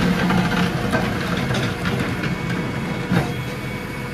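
JCB 3DX backhoe loader's diesel engine running steadily under load while the backhoe digs, with scattered knocks and scrapes as the bucket works through soil and stones.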